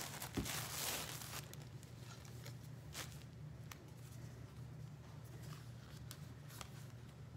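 Faint rustling as a bra and its tags are handled, mostly in the first second and a half, then a few soft scattered clicks over a low steady hum.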